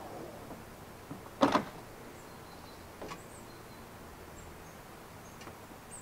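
Truma Combi D 6 diesel heater running with a low steady hum while it starts badly and smokes heavily, typical of running at altitude without the high-altitude kit's reduced-delivery fuel pump. A sharp double knock about a second and a half in, with a few fainter clicks later.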